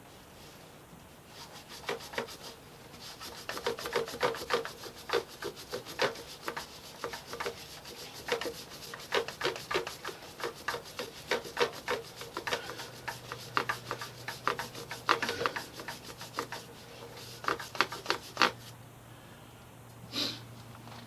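A motorcycle drive chain being scrubbed clean: quick, irregular rubbing strokes that start about two seconds in and stop shortly before the end.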